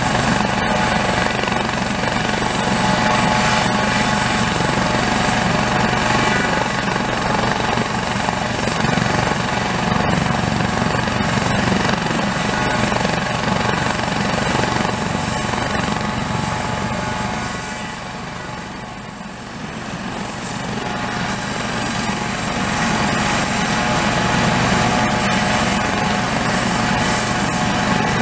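Aérospatiale SA 365F Dauphin 2 helicopter, with twin Turboméca Arriel 2C turboshaft engines, running on the ground with its rotors turning ahead of takeoff. It makes a steady turbine and rotor sound with a constant high whine. The sound grows briefly quieter about two-thirds of the way through.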